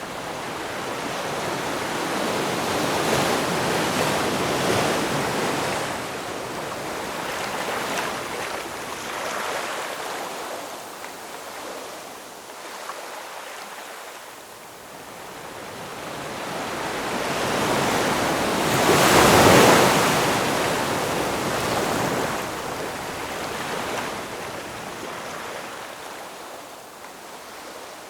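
Ocean waves: surf noise that swells and ebbs in slow surges, the loudest surge coming about two-thirds of the way through.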